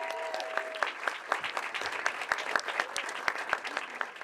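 Audience applauding: a room full of people clapping steadily.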